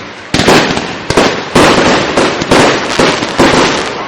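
Aerial fireworks shells bursting in rapid succession, about two sharp bangs a second, each fading out quickly before the next.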